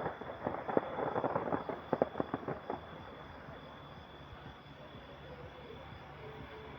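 Fireworks crackling: a rapid scatter of small sharp pops and bangs for about the first three seconds, thinning out and dying away, leaving a low background murmur.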